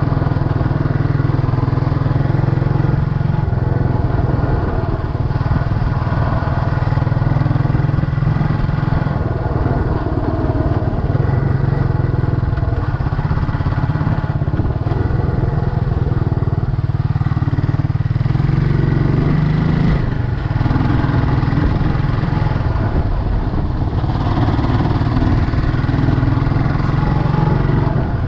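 Scrambler motorcycle's engine running steadily while riding a dirt road, loud and continuous with small shifts in engine speed.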